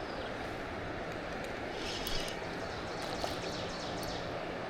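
Steady rushing noise of river water in light rain, with a couple of faint ticks about two and three seconds in.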